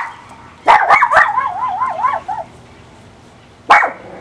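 Miniature Pinscher barking. There is a sharp bark at the start, then a quick run of barks about a second in that trails into a wavering, warbling cry lasting over a second. One more bark comes near the end.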